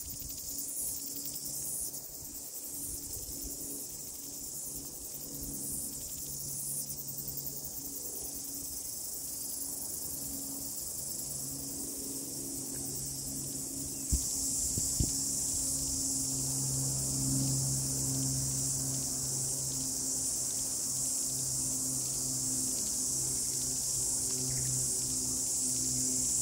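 A steady, high-pitched chorus of insects, getting louder about halfway through, over a low steady hum. Two short knocks come about halfway through, where the chorus grows louder.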